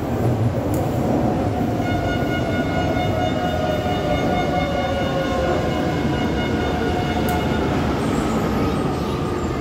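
Metro train pulling into an underground station, its wheels rumbling on the rails. From about two seconds in to about eight seconds in there is a steady high whine, while a lower tone falls slowly as the train slows.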